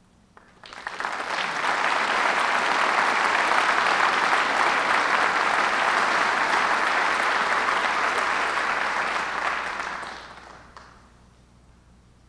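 Audience applauding: the clapping starts suddenly, builds within about a second, holds steady, then dies away about ten seconds in.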